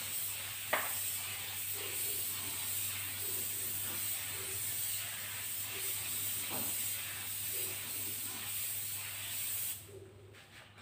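Gravity-feed air spray gun hissing steadily as it sprays topcoat onto a car bumper, with one sharp click about a second in. The spray cuts off shortly before the end.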